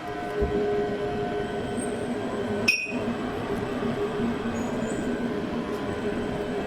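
Heavy sawmill machinery running steadily with a held hum, and one sharp metallic clink about three seconds in.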